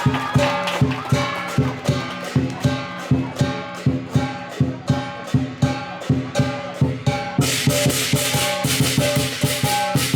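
Lion dance percussion: a big drum beating steadily, about three strokes a second, with ringing gongs and cymbals. About three-quarters of the way in the cymbals start clashing much more densely and loudly.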